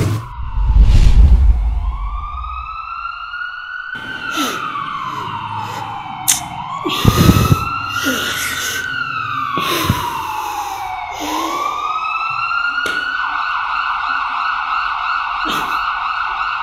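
Emergency siren wailing, slowly rising and falling in pitch about every five seconds, then holding on its high note near the end. A deep rumbling boom fills the first two seconds, and a few sharp knocks sound over the siren.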